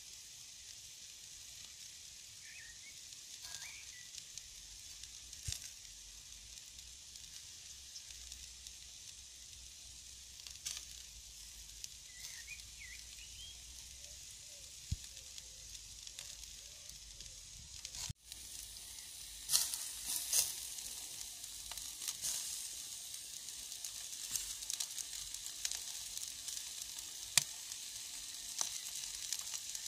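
Meat skewers sizzling on a wire grill basket over charcoal embers: a steady high hiss with scattered sharp pops and crackles. After a brief break about 18 seconds in, the sizzle is louder and pops more often.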